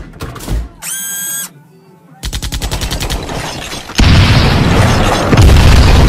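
Added action-film sound effects: a short electronic whine about a second in, then a fast rattle of machine-gun-like fire, then a loud explosion at about four seconds that keeps going.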